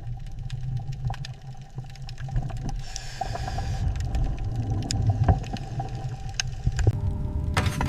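A steady low rumble with scattered sharp clicks and ticks, the clicks bunching together near the end.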